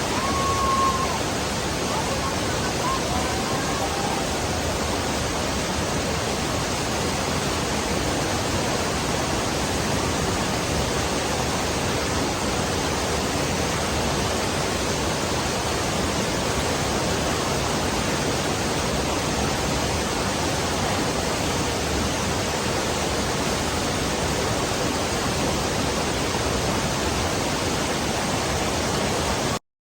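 Steady rushing of a waterfall, an even unbroken roar of falling water that cuts off abruptly near the end.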